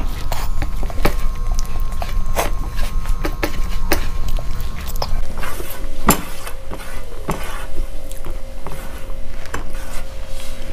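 Fingers scraping and tapping a stainless steel plate while gathering up the last of the khichuri, giving irregular sharp clicks and scrapes.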